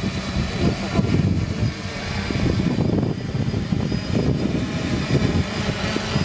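3DR Solo quadcopter's four propellers and motors buzzing steadily as it hovers about a metre above the ground.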